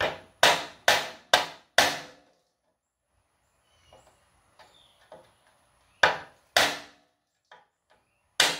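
Ball-peen hammer striking the handle of a screwdriver set in a rusted fan-shroud screw, to shock it loose. Five quick blows, a pause, then three more.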